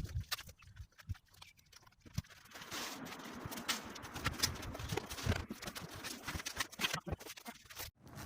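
Irregular clicks, knocks and scraping of hand work on an asphalt shingle roof while a roof vent is being replaced, busier from about two and a half seconds in.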